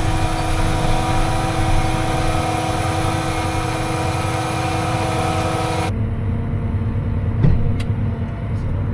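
Tractor engine running at a steady speed. About six seconds in the sound cuts abruptly to a duller engine drone, with a single knock near the end.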